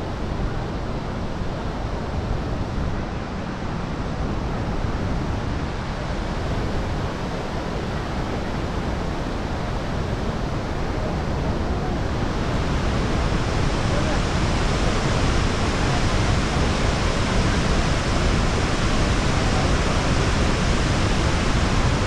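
Steady rush of a waterfall, a flooded muddy river pouring over rock ledges; the roar grows louder and brighter about halfway through.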